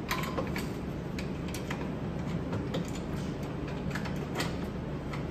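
Light, irregular clicks and taps of metal strut parts being handled and fitted by hand on a strut clamped in a spring compressor, over a steady low hum.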